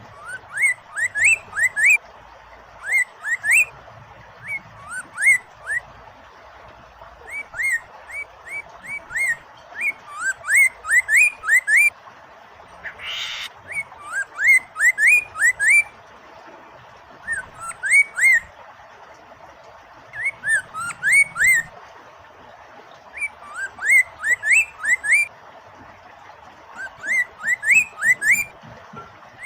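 A poksay mandarin (a caged laughingthrush) sings loud phrases of quick rising whistled notes, three to six to a phrase, repeated every second or two. Running water makes a steady hiss underneath, and there is one brief noisy burst about halfway through.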